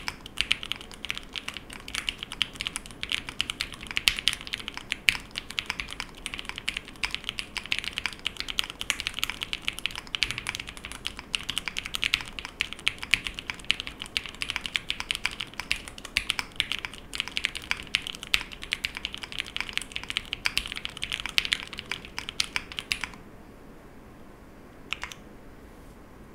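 Fast, continuous typing on a split 65% mechanical keyboard built with lubed and filmed Cherry MX Black linear switches on an aluminium plate, O-ring mounted with no foam. It makes a dense stream of key clacks, a sound its builder calls creamy. The typing stops about 23 seconds in, with one more keystroke a couple of seconds later.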